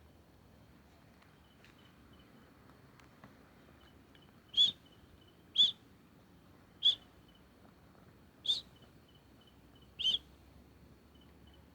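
An unseen animal in the woods giving five short, sharp, high-pitched calls, spaced about one to one and a half seconds apart, over a faint steady chirping of insects.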